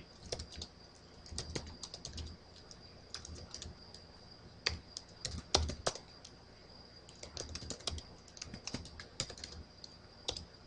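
Computer keyboard being typed on in short, irregular bursts of keystrokes, a few single keys louder than the rest.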